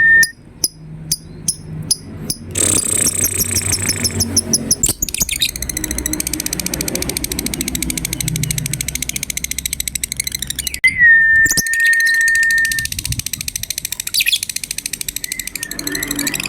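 Lovebirds calling in fast, shrill chattering trills, the 'ngekek' song used as a lure sound for other lovebirds. A few sharp clicks come in the first two seconds, and a single steady high whistle is held about eleven seconds in.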